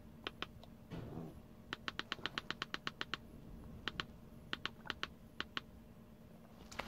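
Plastic buttons on a handheld Autel AutoLink OBD-II scan tool clicking under a thumb as it scrolls through menus: a few clicks, then a quick run of about a dozen, then a handful of single clicks.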